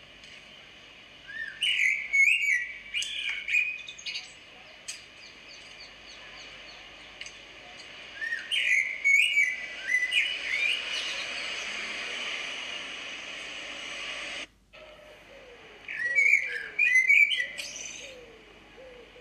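Three bursts of quick, high twittering chirps, a few seconds apart, with a steady hiss between them.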